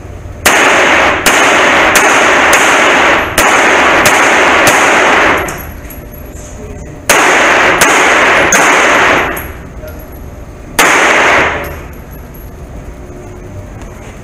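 Thirteen pistol shots fired in an enclosed indoor range: a string of eight about one every 0.7 s, a pause, four more at the same pace, then a single shot. Each shot's echo rings loudly into the next.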